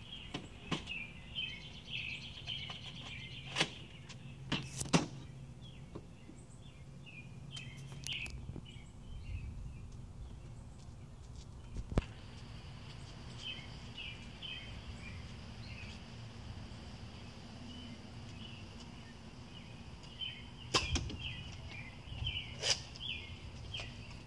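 Nerf Mega blaster firing foam darts, a sharp snap or thud every few seconds, with long gaps between, over small birds chirping in the background.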